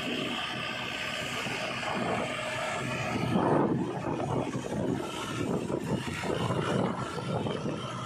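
A JCB 3DX backhoe loader's diesel engine runs as the machine drives close by on tarmac. It is loudest about three and a half seconds in.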